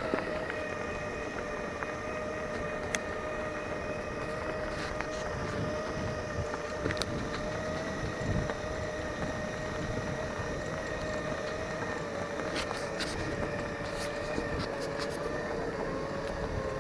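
Segway electric drive motors whining steadily while riding, with a rough rolling noise underneath and a few light knocks.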